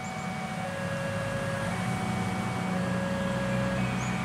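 Level-crossing warning alarm sounding two alternating tones, high and low, about a second each. Under it, the low rumble of a train unseen in the fog builds from about a second in.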